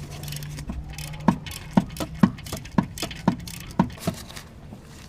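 Ratchet wrench clicking in a steady rhythm, about two clicks a second, as a fastener is worked loose, over a steady low hum.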